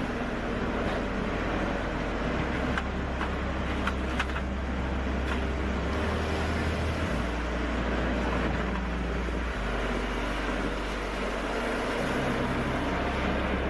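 A heavy wood-processing machine running steadily, with a low hum that shifts to a new pitch a few times. A few sharp knocks come about three to four seconds in.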